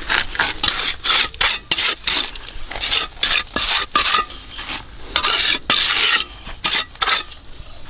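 An uneven run of short scraping, rasping strokes, about fifteen in all, with one longer scrape about five seconds in.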